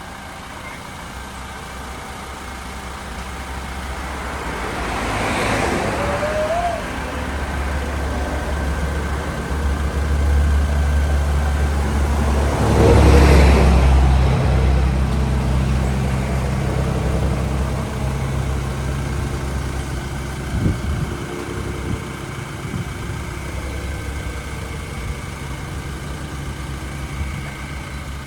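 Road traffic with a running vehicle engine: a steady low rumble, with two vehicles passing about five and thirteen seconds in, the second one the loudest.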